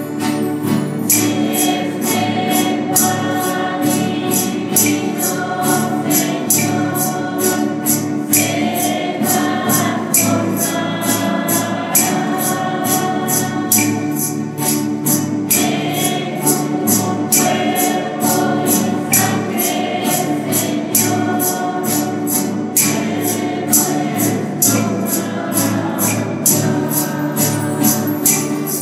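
Choir singing a hymn, most likely the offertory hymn of the Mass, with instrumental accompaniment and a steady percussion beat.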